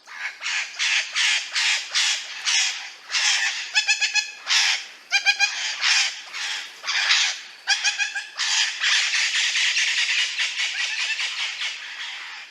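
Parrot squawking: a run of harsh, raspy screeches at about three a second, broken by a few quick stuttering rattles. About eight seconds in, the calls run together into one long continuous harsh screech.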